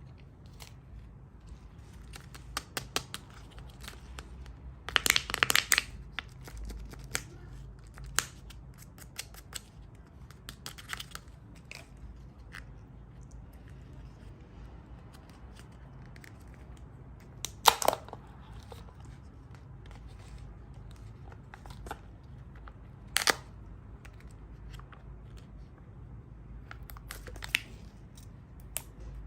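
Plastic surprise eggs and their wrappers handled and opened by hand: scattered clicks, crinkles and short tearing rustles, with a loud cluster about five seconds in and single sharp snaps later on.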